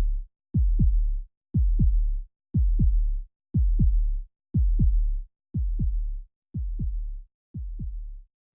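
Electronic intro sound effect: a deep, heartbeat-like double thump of two kick-drum hits that drop in pitch, repeating about once a second and fading gradually over the second half.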